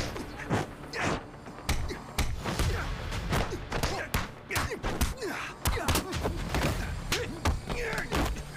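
A fistfight: a rapid run of punches and kicks landing as thuds and whacks, several a second, mixed with short grunts and shouts from the fighters.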